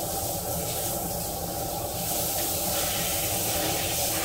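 Water spraying from a handheld shower head with a steady hiss.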